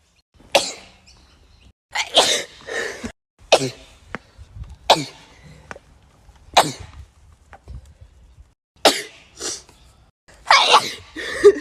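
Sneezes, about ten short sharp bursts one after another, some coming in quick pairs or clusters.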